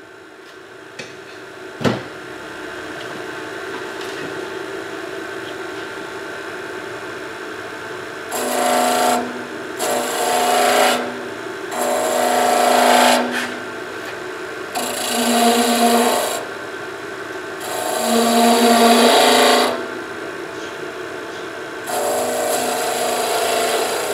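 Wood lathe running steadily while a skew chisel cuts the spinning spindle in six separate passes of one to two seconds each, each pass a loud scraping shave. There is a sharp click about two seconds in.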